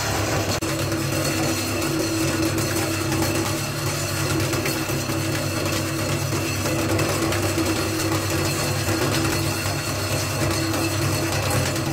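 Meat chopping machine running steadily, its stainless steel blade spinning in the bowl and chopping meat into a fine paste, giving an even machine hum.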